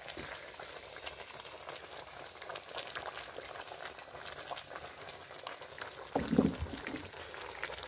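Vegetable stew simmering in an open cast-iron potjie over a wood fire: a steady fine bubbling crackle. A brief louder sound comes about six seconds in.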